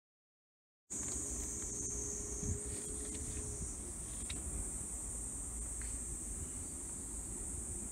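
Steady, high-pitched chorus of insects, starting abruptly about a second in after a moment of silence.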